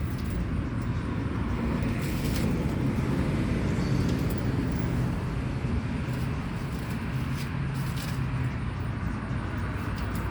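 A low engine rumble running steadily, with a few faint knocks on top.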